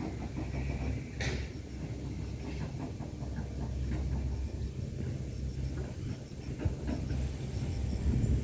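Hitachi excavator's diesel engine running steadily under load, with scattered knocks and cracks as the machine chops up oil palm trunks. A sharp crack comes about a second in.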